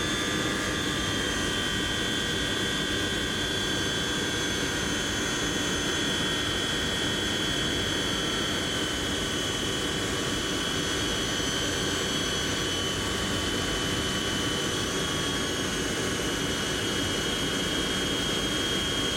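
Boeing 720's Pratt & Whitney JT3D turbofan engines running at full takeoff power: steady jet noise with a high whine over it.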